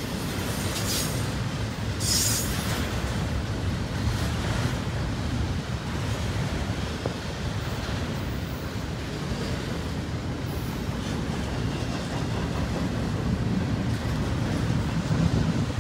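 Double-stack intermodal well cars rolling past, a steady rumble of steel wheels on rail. Brief high-pitched squeals come about one and two seconds in.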